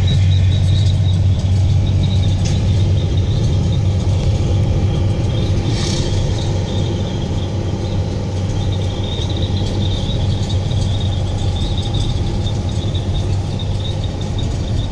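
Peterbilt 337 truck's diesel engine running steadily at about 1,900 rpm while cruising, heard from inside the cab as a constant low drone with road noise and a faint steady high whine.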